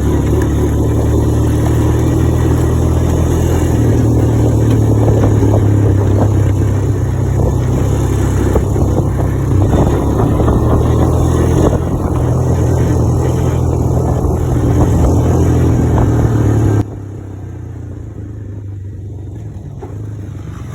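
Motor vehicle engine running steadily while driving, a loud low hum with road and wind noise; the sound drops suddenly to a much quieter drone near the end.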